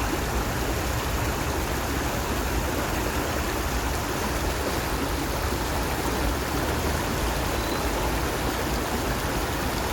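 Stream water flowing and splashing steadily, a continuous even rush.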